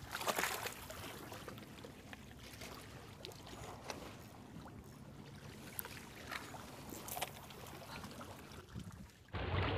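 Shallow sea water lapping and trickling around a wading angler, with a few small splashes and clicks.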